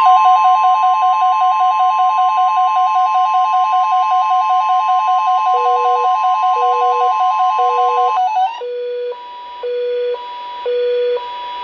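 NOAA Weather Radio's steady 1050 Hz warning alert tone, the signal that sets off weather radios ahead of a flood watch message, sounding for about eight seconds. Over it, the weather radios' own alarms go off: a fast warbling beep, then a lower beep pulsing about once a second. After the 1050 Hz tone stops, an alarm alternates high and low beeps every half second.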